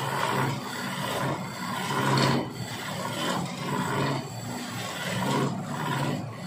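Hand turning chisel cutting into a long wooden blank spinning on a lathe: a rasping scrape that swells and fades with each pass of the tool, over the lathe's steady hum.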